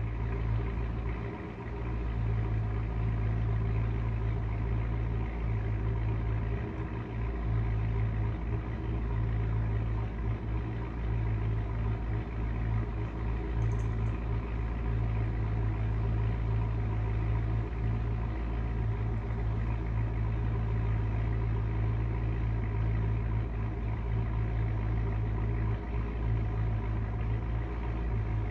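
A steady, low machine hum, made of several even tones, running without a break.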